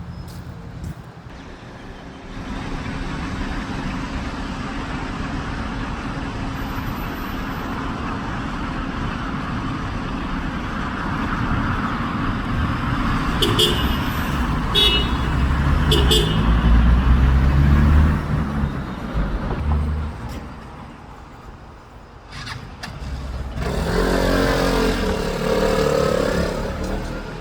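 Road vehicle noise: a low engine rumble that builds, peaks about two-thirds of the way through and falls away, with a few sharp clicks and another pitched engine or voice sound near the end.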